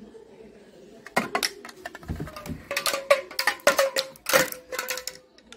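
Toy plastic damroo (pellet drum) shaken by a child: from about a second in, its beads rattle against the drumheads in fast, uneven clicks with a light ringing note.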